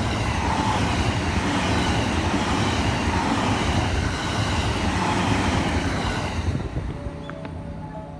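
JR West 321 series electric commuter train passing at speed, its wheels rumbling loudly on the rails along with the hum of its motors, easing off after about six and a half seconds as it goes by.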